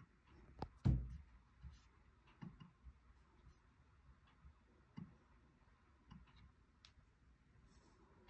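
Faint scattered clicks and knocks, the loudest a low thump about a second in.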